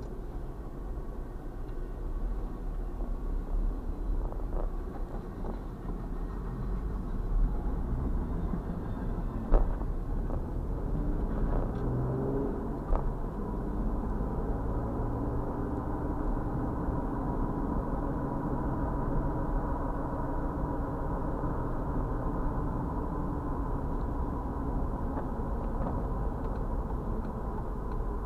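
Steady low rumble of a car driving, heard from inside the cabin by a dashcam, with a couple of sharp knocks in the first half.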